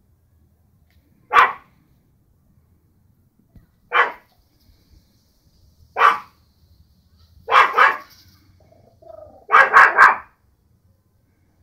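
Small white poodle barking at ducks: single barks about every two seconds, then a quick pair and a run of three near the end.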